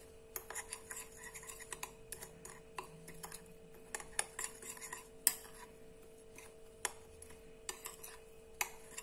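Metal spoon stirring dry seasoning powder in a glass bowl: faint, irregular clinks and scrapes of the spoon against the glass.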